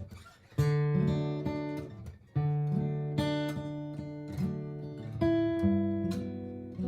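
Martin GPCPA4 steel-string acoustic guitar strumming chords and letting them ring. After a short pause at the start, a new chord is struck every second or so.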